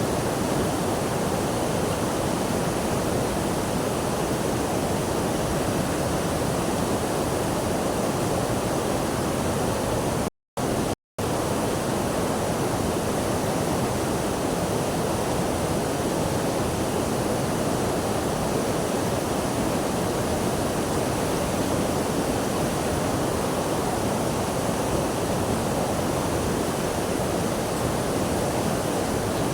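Rushing water making a steady, unbroken noise, cut by two brief dropouts to silence about ten seconds in.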